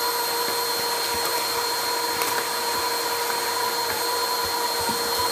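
Household vacuum cleaner running steadily, its motor giving an even rush of air with a constant whine.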